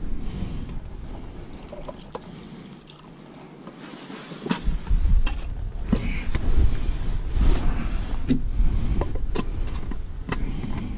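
Gusting wind buffeting the microphone as a low rumble, which eases about two seconds in and comes back stronger a couple of seconds later, with scattered light clicks and knocks of handling.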